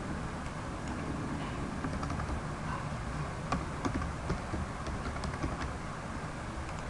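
Typing on a computer keyboard: irregular light key clicks over a faint steady hiss.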